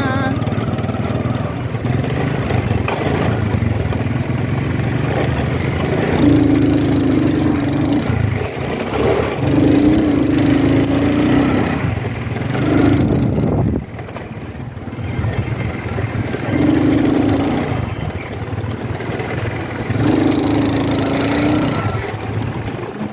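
Small motorcycle engine running as the bike rides along, rising several times to a higher, louder steady note under throttle and easing off about fourteen seconds in.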